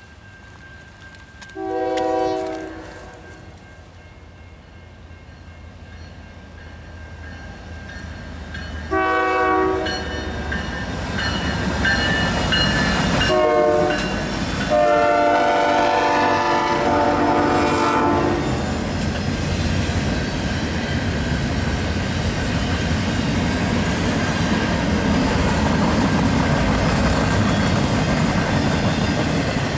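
Diesel freight locomotive's multi-chime air horn sounds four blasts, long, long, short, long, in the pattern of a grade-crossing signal. A steady rumble of the passing train builds under it, and once the horn stops the double-stacked container cars roll by with a continuous clatter of wheels on rail.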